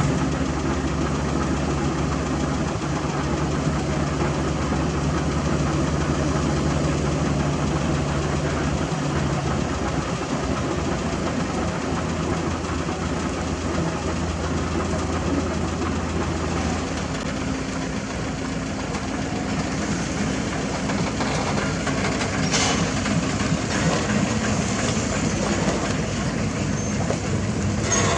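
Engines of heavy road-construction machinery running steadily. One low engine hum stops about a third of the way in and another a little past halfway. A short sharp knock comes near the end.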